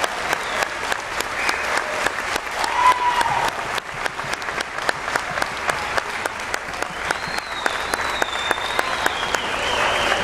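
Audience applauding a children's choir, many hands clapping densely, with a few long cheers or whistles rising over the clapping.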